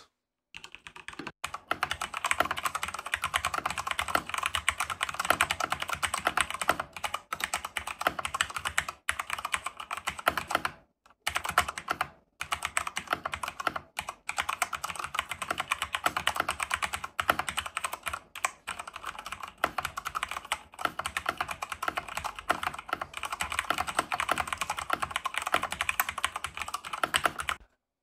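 Continuous typing on a Ducky ProjectD Tinker 65% mechanical keyboard with Cherry MX Brown switches: a quick, steady run of key clicks with a few brief breaks near the middle.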